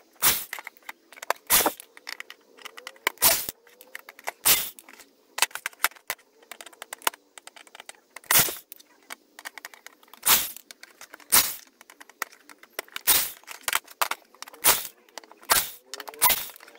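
Sharp metallic clicks and clinks, roughly one a second and irregularly spaced, as screws are backed out of a DVD-ROM drive's sheet-metal casing with a cordless drill and the casing and screws are handled. A couple of faint, brief drill-motor whirs come in between.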